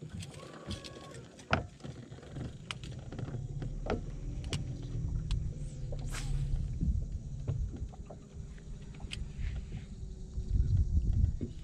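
Wind buffeting the microphone on an open bass-boat deck, a steady low rumble that swells briefly near the end, with scattered light clicks of tackle and a faint steady hum.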